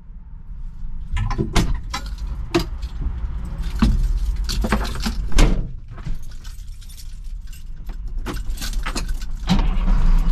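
Keys jangling and a run of sharp clicks and knocks in a wheel loader's cab as the operator climbs in and handles the key ring at the controls. A low engine rumble runs underneath and grows louder near the end.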